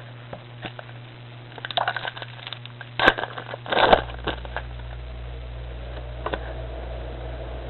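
Foil wrapper of a Pokémon trading card booster pack crinkling and tearing open, in scattered crackles and clicks, two clusters in the first half.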